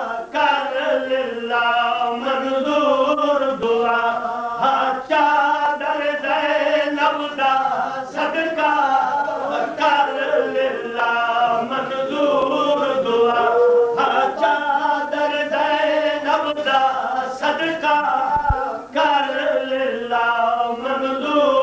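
Unaccompanied man's voice chanting a sung religious recitation through a microphone, in long melodic phrases with brief pauses between them.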